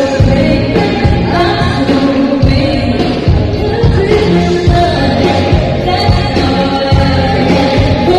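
Live pop song with a female lead vocal over a band with a steady beat, loud.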